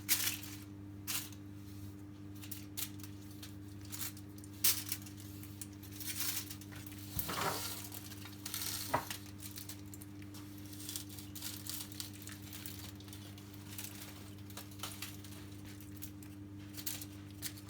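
Chinese cabbage leaves being handled and laid over a fish in a dish: scattered light clicks, knocks and leafy rustles, over a steady low hum.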